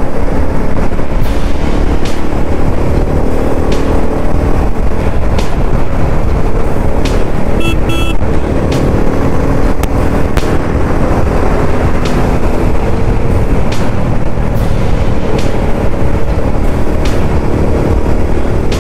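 Motorcycle engine running steadily at highway cruising speed under heavy wind rush on the microphone, with two short beeps near the middle.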